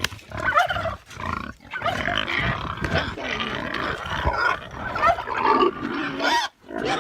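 Pigs grunting and squealing, a rapid run of short calls one after another.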